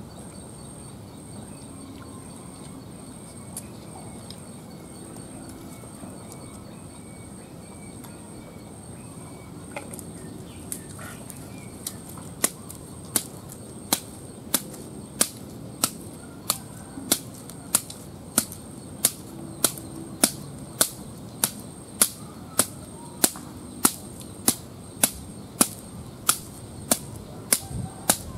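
Sharp knocks of a blade chopping at a stick of wood. They start scattered about ten seconds in, then come steadily at a little over one and a half a second. Under them runs a steady high whine.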